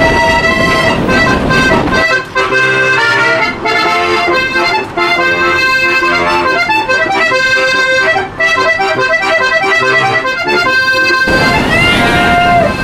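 Diatonic button accordion (a Styrian harmonica) playing a lively folk tune. At the start and again near the end, the train's running rumble lies under it, and a short rising whistle toot sounds just before the end.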